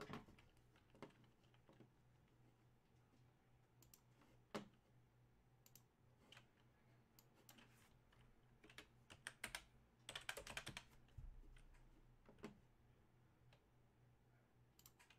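Faint, scattered computer keyboard keystrokes and clicks, with a quicker run of keys about ten seconds in.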